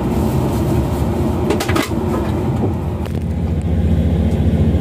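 Passenger train running on the rails, heard from inside the carriage: a steady low rumble with a few sharp clicks about a second and a half in, growing louder near the end.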